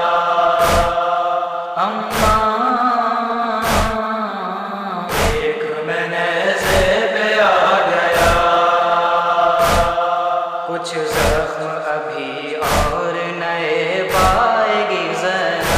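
A backing chorus of voices hums and chants a held, gliding noha melody without words. Evenly spaced chest-beating (matam) thuds keep time about every one and a half seconds.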